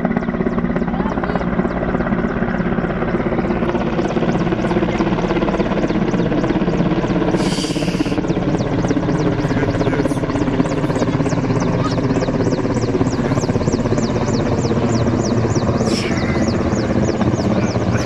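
Helicopter flying low overhead, its rotor and turbine engines making a steady, continuous din that grows louder about four seconds in as it comes nearer, with a fast, even beat from the rotor.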